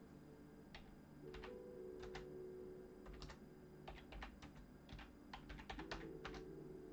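Computer keyboard being typed on in short irregular runs of light clicks, over faint background music.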